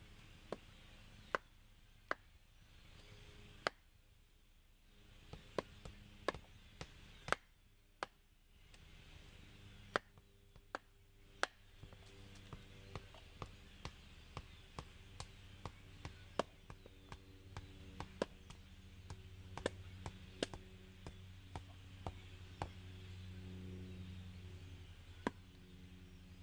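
Wood being chopped by hand: irregular sharp strikes, about one or two a second, with short pauses between runs.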